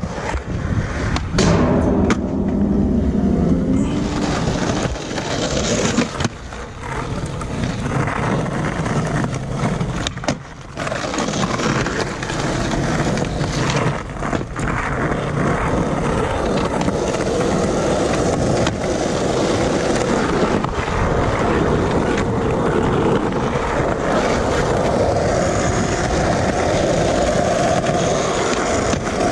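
Skateboard wheels rolling over rough concrete and asphalt in a steady rumble, broken by a few sharp clacks of the board against the ground.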